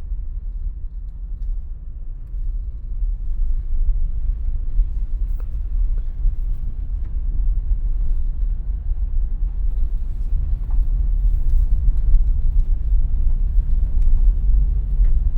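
Steady low rumble of a vehicle driving along a road, heard from inside the cab. It grows slightly louder, with a few faint ticks.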